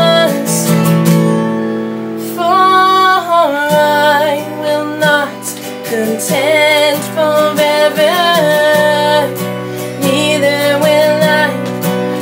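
Slow worship song: a woman's voice carrying the melody over acoustic guitar, opening on a long held note before the melody moves on.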